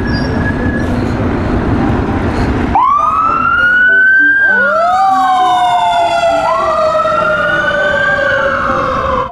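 Fire engine siren sounding in slow wails, each rising quickly and then falling away, with two wails overlapping from about halfway through. For the first few seconds before the siren starts there is a loud, steady rushing noise.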